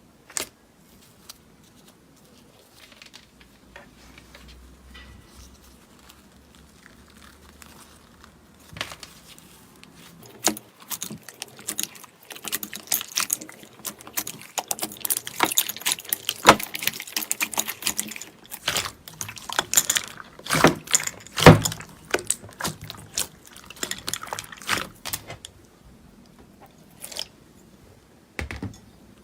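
Slime being pressed and squished by hand, giving many sharp clicks, snaps and crackling pops that start about a third of the way in, grow thickest in the middle and thin out near the end.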